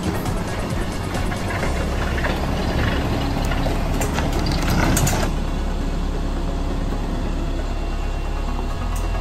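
An engine running steadily under load, with clanking and knocking around four to five seconds in.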